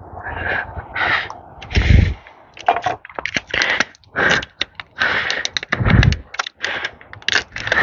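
Irregular rustling and scraping handling sounds from working with a tire plug repair kit, with a few low thumps along the way.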